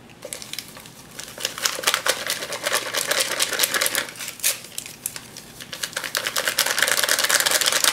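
Stiff paper inner pouch of instant pudding mix crinkling in rapid dense crackles as it is shaken and squeezed empty into a steel bowl of milk, the powder pouring in. The crackling eases briefly about halfway through.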